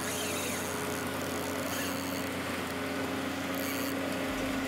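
An engine running steadily, a constant low hum over an even hiss.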